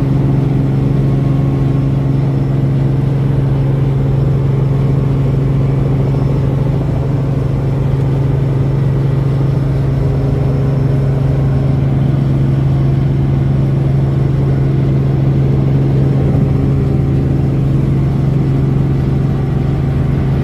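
Robinson R44 Raven II helicopter's six-cylinder Lycoming engine and rotors running steadily at take-off power, heard from inside the cabin as a loud, even drone with a strong low hum.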